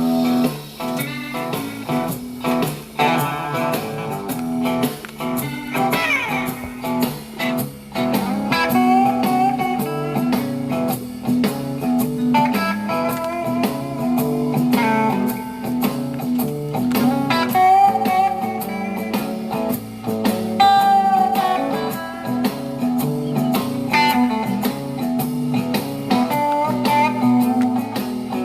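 Background music: a blues guitar track with plucked and sliding guitar notes over a steady low bass line.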